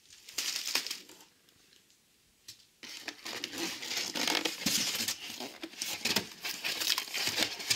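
Cardboard box and plastic wrapping being handled, rustling and crinkling. There is a short rustle about half a second in, a pause, then steady crinkling and scraping from about three seconds in.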